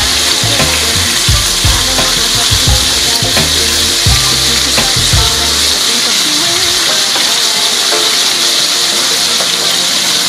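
Salmon fillets sizzling steadily in a nonstick sauté pan, a constant frying hiss. During the first half, metal tongs knock and scrape against the pan as the fillets are turned; these stop about halfway through and only the sizzle goes on.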